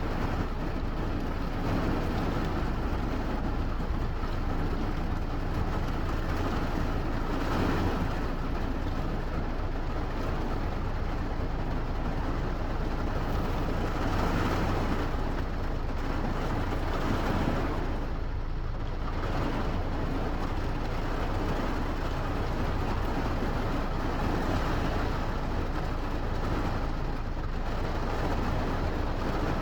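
Steady heavy rain: a dense, even hiss with a deep low rumble beneath it, swelling slightly now and then.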